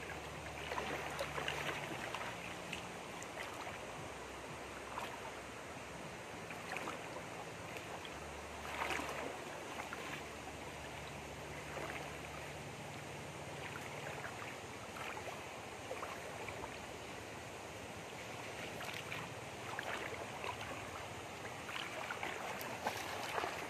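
Shallow rocky stream rushing steadily, with a few splashes as a person wades and crawls through the water.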